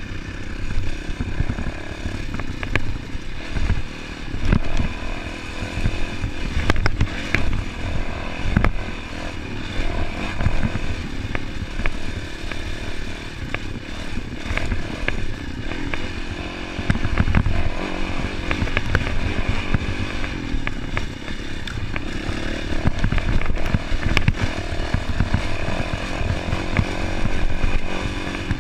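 Dirt bike engine running hard while ridden over a rough dirt track, revs swelling and dropping as the rider accelerates and backs off, heard from a camera mounted on the moving bike, with frequent knocks and rattles over the bumps.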